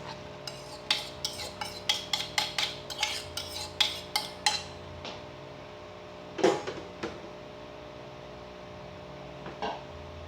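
A utensil clinking and knocking against a bowl in a quick run of strokes for the first few seconds, then a few single, louder knocks: scraped ripe mango being scooped into a bowl of condensed milk and cream.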